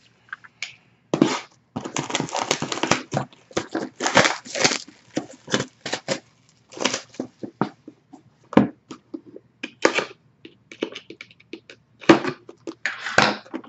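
Hands opening a sealed trading-card box and pack: irregular bursts of tearing and crinkling wrapper and cardboard handling.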